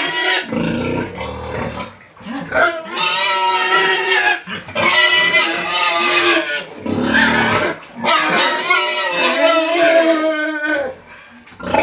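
Pigs squealing in several long, loud cries of a second or more each, with low grunts in between.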